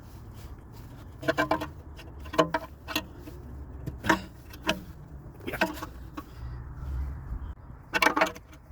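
Metal hand tools and parts clinking and scraping on the car's wheel hub: a handful of short, sharp clinks with a little ringing, spaced irregularly, the last pair about eight seconds in, over a low steady rumble.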